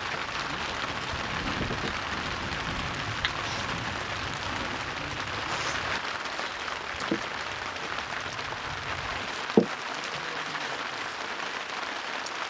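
Steady rain pattering on the hut's roof, with a few short knocks, the loudest about nine and a half seconds in.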